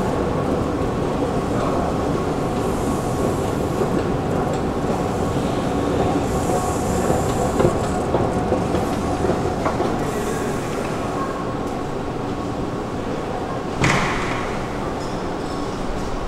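Stockholm metro train running steadily nearby, with a few short high hisses and one sharp clank about 14 seconds in.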